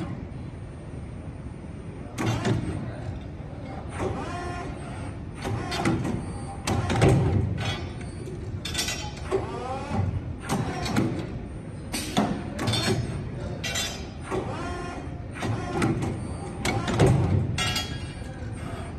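A 25CNC4A-2S CNC tube bending machine cycling through a bend program. It makes repeated short bursts of machine noise every one to two seconds, some with a pitch that rises and falls, as it feeds, rotates and bends the tube.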